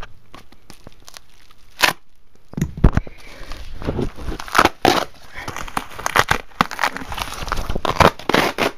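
Cardboard battery packaging being cut and torn open by hand. A few separate sharp rips come first, then from about a third of the way in there is a continuous run of tearing and rustling.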